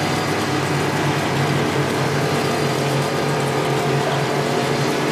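Plastic string (sutli) making plant running: a steady mechanical drone with a low hum and a constant hiss, unchanging throughout.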